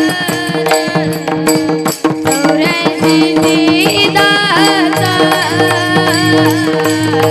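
Marathi Varkari bhajan music: a melody with gliding, wavering notes over sustained drone notes and light percussion, with a deeper held note joining about five seconds in.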